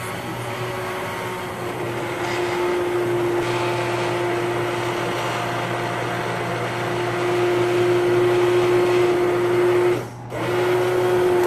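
Immersion hand blender running in a pot of red lentil soup, puréeing it to a smooth consistency: a steady motor whine with the churning of the liquid. It stops briefly about ten seconds in and starts again.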